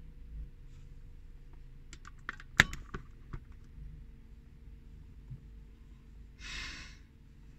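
Inside a stationary car: a low steady rumble from the idling vehicle under a cluster of sharp clicks about two to three seconds in, one much louder than the rest. A short breathy hiss follows a little before the end.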